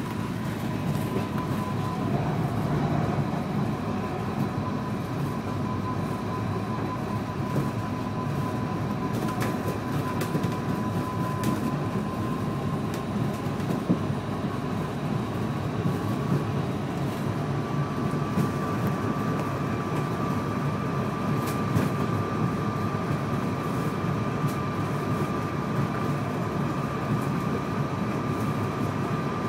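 Ride inside a Heathrow ULTra pod, a small battery-electric vehicle on rubber tyres running along its concrete guideway: a steady rolling rumble with a thin whine from the electric drive, which rises slightly in pitch about halfway through. A few sharp knocks or rattles come from the cabin.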